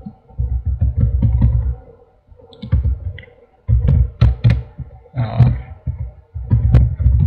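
Computer keyboard typing in short irregular spells: quick key clicks over dull thumps of the keys. There are gaps of about half a second between the spells.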